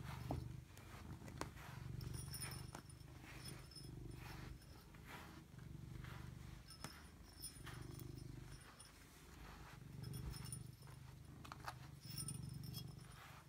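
Domestic cat purring close to the microphone, a low steady rumble that swells and eases every couple of seconds, with scattered faint clicks and rustles.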